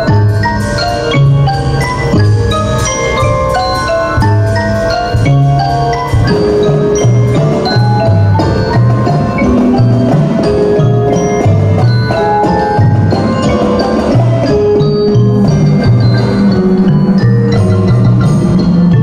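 Indoor percussion front ensemble playing: marimbas and other mallet keyboards strike quick runs of notes over a repeating low bass line.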